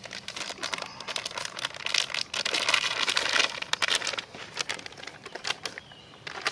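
Plastic packaging from a military ration crinkling and tearing as it is pulled open by hand, a run of irregular crackles that is busiest from about two to three and a half seconds in.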